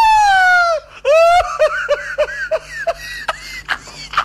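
High-pitched laughter: one long squealing cry that falls a little in pitch, then a run of quick, short 'ha' bursts that die away into breathy gasps.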